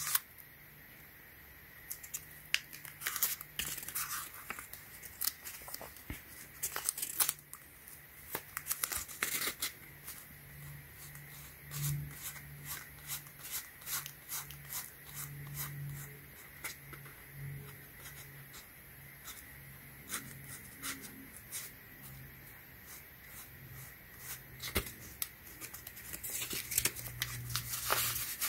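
Sanding sponge rubbing over a foam shoe's scratched strip in short, irregular scratchy strokes, wet-sanding the scuffs down.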